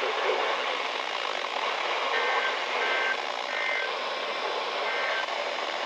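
NOAA weather radio receiver hissing with static from weak reception, with four short bursts of two-pitch data tones about two to five seconds in, the squawk of an EAS SAME header from one of the stations.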